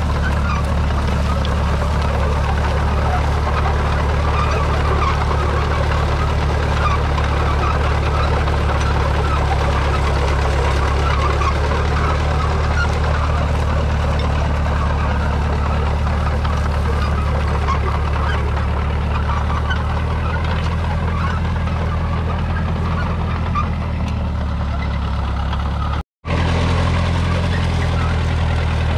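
1937 Allis-Chalmers Model M crawler's 4.9-litre four-cylinder petrol/TVO engine running steadily under load while pulling a trailed plough, with a steady rushing noise above it. The sound drops out for an instant near the end, then carries on.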